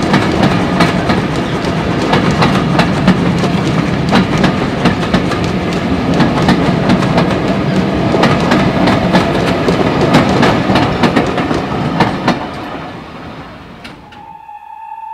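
Steam-hauled passenger train running past, its carriage wheels clicking rapidly over the rail joints. The sound fades away over the last few seconds, and a short high tone sounds at the very end.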